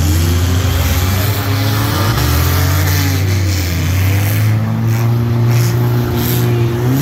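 Several derby cars' engines running hard and revving on a dirt track, their pitches rising and falling and overlapping.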